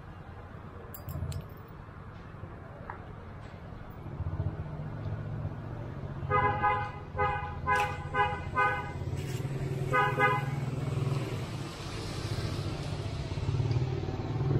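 A motor vehicle's horn honking in a rapid string of about six short toots, then once more a second later, over the low rumble of a passing vehicle's engine.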